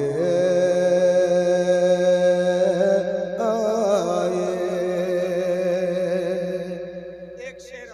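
A man singing a naat into a microphone. He holds one long note for about three seconds, then sings a wavering, ornamented phrase that fades away near the end.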